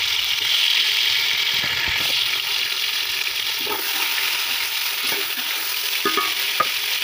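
Chopped tomatoes sizzling steadily in hot oil in an aluminium pot, a loud even hiss of frying.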